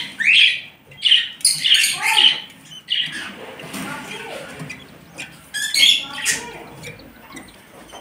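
Nestling birds begging with short, harsh squawking calls in quick bursts, loudest in the first three seconds and again around six seconds in, then fading.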